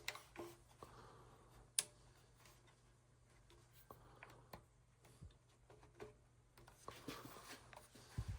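Near silence: a faint low steady hum with scattered faint clicks of small handling, and one sharper click about two seconds in.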